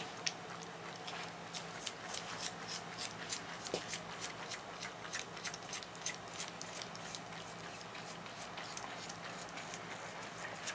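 A fawn suckling on a baby-bottle nipple: rapid, rhythmic wet sucking clicks, several a second.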